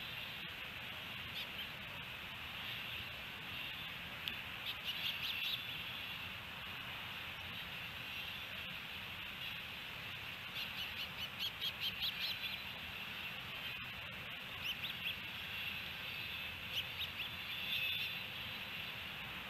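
Osprey calling in short runs of rapid, high chirps. The longest run, about eight notes, comes near the middle, over a steady background hiss.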